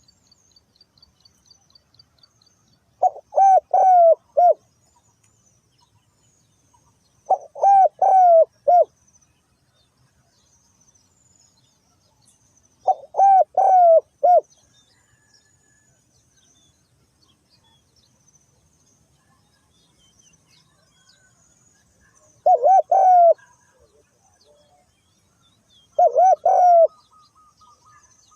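Spotted dove (tekukur) cooing: five short phrases of three or four coos each, several seconds apart, with faint high chirping of small birds in the background.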